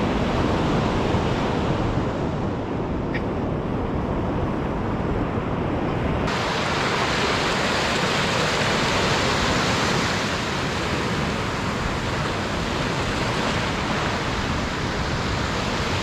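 Ocean surf washing up a beach, a steady rush of breaking waves. About six seconds in it turns abruptly brighter and hissier.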